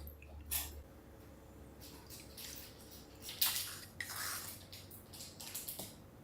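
Quiet kitchen food-prep sounds: a few short, wet splashes and rustles, as of wet food or water handled in a bowl or sink. A low hum stops under a second in.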